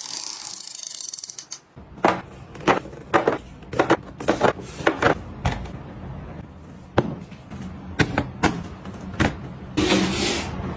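Desk items being handled and set down on a desktop: a rustling hiss at the start, then a run of sharp clicks and light knocks, and more rustling near the end.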